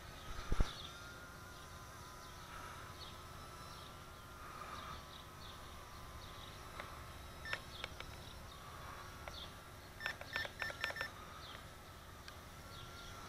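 Estes Proto X nano quadcopter's tiny motors whining faintly, the pitch wavering as it is flown, with birds chirping. About ten seconds in comes a quick run of about five short electronic beeps, with a single beep a little before it.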